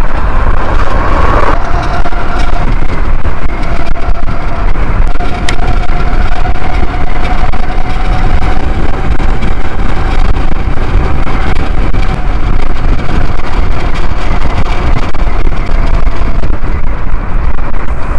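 Heavy wind rushing over the microphone of a fast-moving electric scooter, with the scooter's motor giving a steady whine that rises slightly with speed and fades out near the end.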